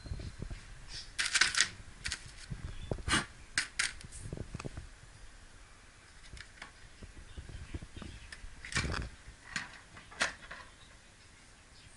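Irregular clicks, clacks and knocks of hard plastic tool cases and tools being handled and set onto a small wooden wall shelf. The loudest clusters come just over a second in, around three to four seconds in, and near nine and ten seconds in.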